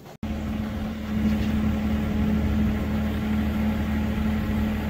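Compact tractor engine running steadily, a constant low drone, as its front loader carries a bucket of logs.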